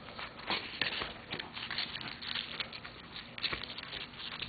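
Corn husks rustling and crackling as a hand grips and handles the ears, a run of irregular light crackles.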